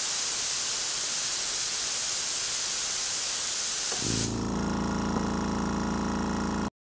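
Compressed air hissing loudly out of a Stealth 3-gallon oil-free compressor's tank as the pressure is bled down. About four seconds in the hiss stops and the compressor's 1 HP motor and pump kick on with a steady hum, starting its recovery from 120 PSI.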